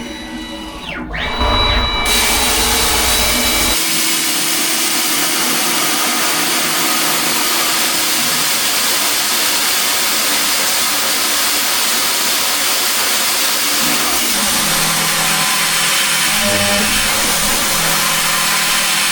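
Spindle of a TechCNC AP4060 benchtop CNC machine with a rising whine about a second in, then steady whirring and cutting noise as it mills aluminum.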